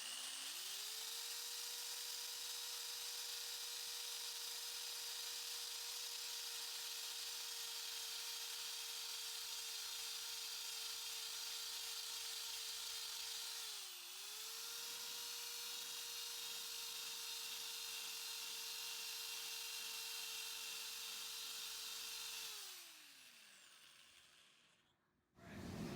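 Electric drill spinning an abrasive paint-stripping disc against the inside of a cast iron wok. The motor spins up to a steady whine over a high grinding hiss, sags briefly about halfway, then winds down near the end.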